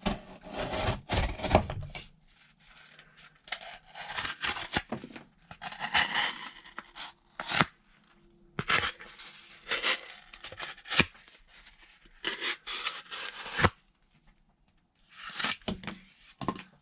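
A CJRB Centros folding knife's D2 steel blade slicing through cardboard in a series of scratchy, tearing cuts, about six bouts separated by short pauses.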